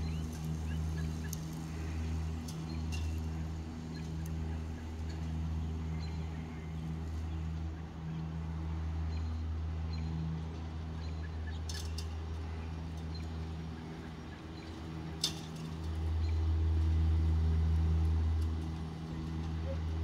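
Battery-electric EGO zero-turn riding mower cutting grass, its blade motors giving a steady low hum that swells louder for a couple of seconds near the end. A single sharp click comes just before the swell.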